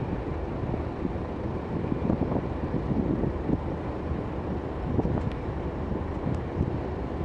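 Gusty wind buffeting the microphone in irregular blasts, over a steady low rumble.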